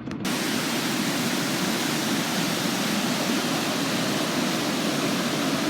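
Steady, loud rush of water from river rapids, starting abruptly just after the start.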